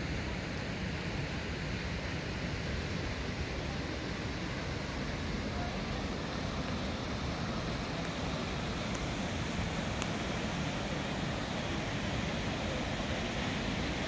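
Steady rushing of a river flowing through the canyon below, with wind buffeting the microphone.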